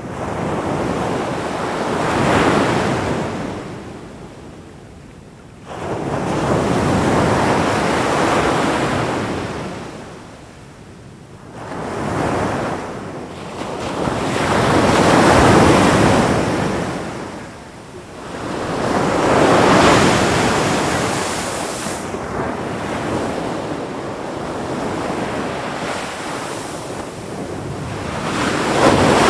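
Ocean waves surging in and washing back, a new swell of rushing surf every four to six seconds, with a steadier wash for a few seconds before a last surge near the end.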